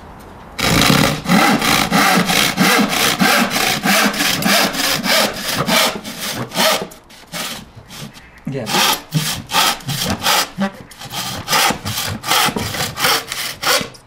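Hand saw cutting across a board of treated softwood, steady back-and-forth strokes about three a second, faltering for a couple of seconds about halfway before picking up again until the piece comes off near the end. The saw is binding because the treated timber is still wet at the edges.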